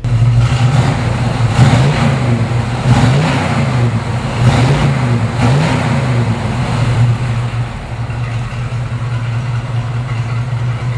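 Freshly built 350 cubic-inch Chevrolet small-block V8 running through its dual exhaust, stationary, revved up in several short blips and then settling to a steady idle for the last few seconds.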